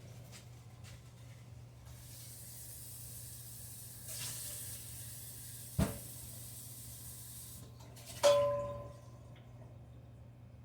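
Hiss of hot grease from a skillet of frying hamburger patties as the grease is drained off. There is a sharp knock in the middle and a ringing metal clang about eight seconds in, which is the pan or a utensil striking metal.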